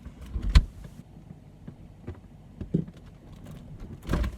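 Knocks and thuds of a phone being handled and set down inside a fridge, close to its microphone: a loud thud about half a second in, a smaller knock near three seconds, and another thud near the end.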